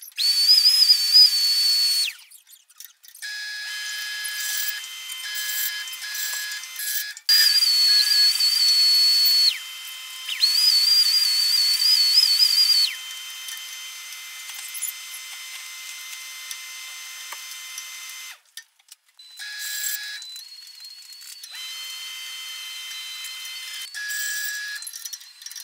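Band saw cutting weathered barn wood boards: a loud, high, slightly wavering whine during three cuts of two seconds or so each, at the start, about seven seconds in and about ten seconds in. Between cuts the saw runs more quietly, and a fainter whine returns near the end.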